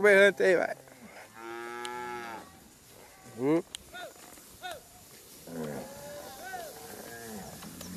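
Zebu cattle in a herd mooing: a loud call at the start, one long drawn-out moo about a second and a half in, several short calls between three and five seconds, and fainter moos near the end.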